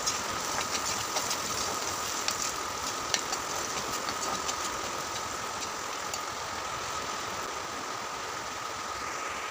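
Potato cubes frying in oil in a pan, a steady sizzle with scattered small crackles and clicks, mostly in the first few seconds, as a slotted metal spoon turns them. A steady hum runs underneath.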